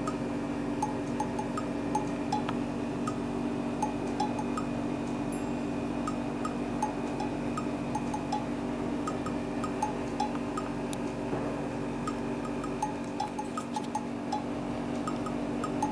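Light background music of short, evenly spaced plinking notes over a steady low drone.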